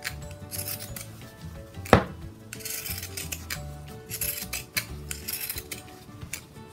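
Pinking shears cutting 100% cotton fabric in a quick series of snips, with one sharp click about two seconds in.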